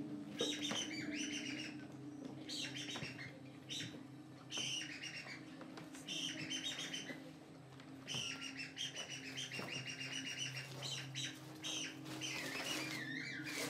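Birdsong for the stage robin: short bursts of chirps and trills every second or two, with a few falling whistles near the end, over a low sustained music drone.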